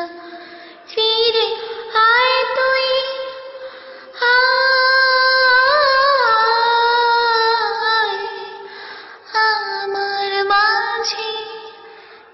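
A female voice singing a wordless melody in three long phrases, holding drawn-out notes with a wavering turn near the middle.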